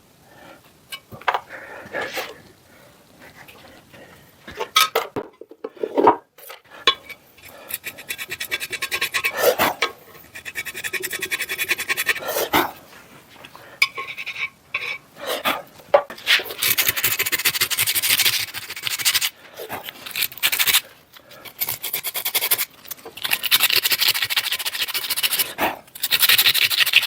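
Hand abrading strokes scraping on a drill press head casting as patched-over lettering is worked smooth. The strokes are scattered at first, then quick and almost continuous for roughly the last ten seconds.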